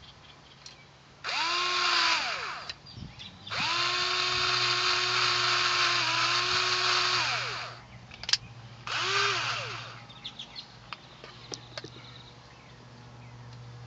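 Power drill driving screws in three runs, a short one, a long one of about four seconds and another short one, its motor spinning up to a steady whine and winding down after each, while speakers are fastened to their mounting brackets. Light clicks and handling noises follow.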